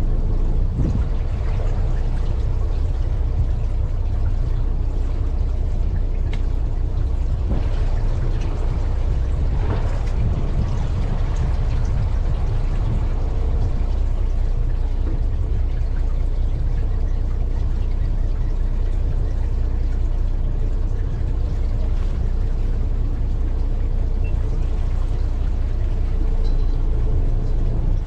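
Fishing boat's engine running steadily, with water rushing and splashing against the hull.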